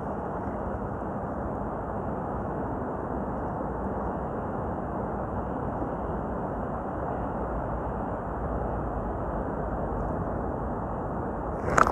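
Steady rushing of sea surf breaking along the shore. There is one short sharp knock near the end.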